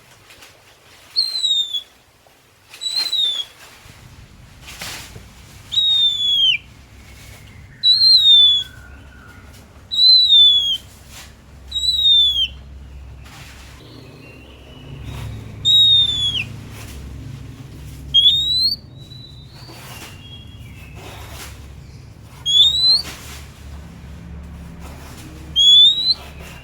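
Oriental magpie-robin (kacer) singing a loud, clear whistled note repeated about every two seconds, most notes sliding downward and a few later ones rising. A faint low hum runs underneath, with a few short clicks between the notes.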